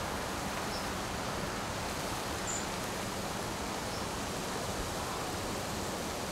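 A steady, even hiss, with a few faint high chirps over it.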